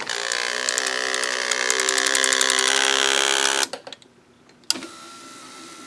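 A 1986 Oldsmobile power window regulator motor runs, driving its perforated window tape through the regulator track. It makes a loud steady electric whine with rapid ticking over it, and stops sharply about three and a half seconds in. After a short pause there is a click and a quieter steady whine.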